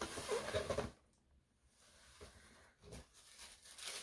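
Tissue paper rustling and crinkling in a cardboard shoe box as it is pulled back from a new pair of sneakers, loudest in the first second, with a couple of light knocks about halfway.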